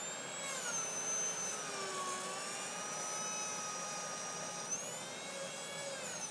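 Low-speed dental lab handpiece spinning a Brasseler H219 cutting burr through thermoformed Erkodur plastic: a steady high whine whose pitch dips about half a second in, climbs about two-thirds of the way through, and sags again near the end.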